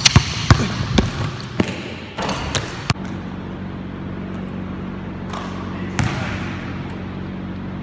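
Basketball dribbled hard on a hardwood gym floor, about seven sharp bounces in the first three seconds, then a steady hum with two more bounces or thuds later on.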